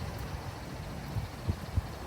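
Low wind rumble on the microphone, with a few soft low thumps near the end.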